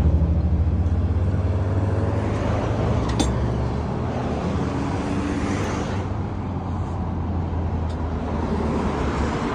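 A motor vehicle's engine running steadily with a low hum, over roadside traffic noise.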